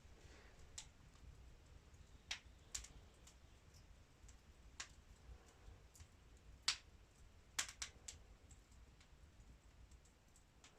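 Near silence broken by a few faint, sharp clicks scattered irregularly, about eight in all, with a small cluster around two-thirds of the way in.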